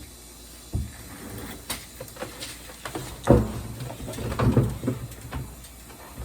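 A hydroponic tank being shifted into place: irregular knocks, bumps and scraping, with a heavy thump about three seconds in and a cluster of bumps shortly after.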